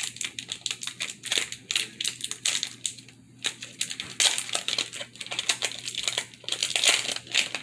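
Foil wrapper of a Pokémon card booster pack crinkling and crackling irregularly as it is handled and opened by hand.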